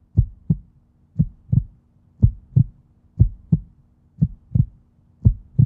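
Heartbeat sound effect: a slow, steady double thump, lub-dub, repeating about once a second, six beats in all.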